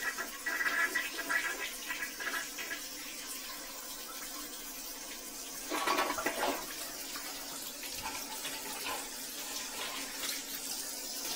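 Water running and splashing onto a tiled bathroom floor from a hose, a steady hiss. A brief clatter comes about six seconds in.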